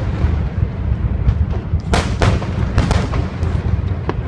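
Fireworks shells bursting: a couple of sharp bangs about two seconds in and a few smaller pops after, over a continuous deep rumble.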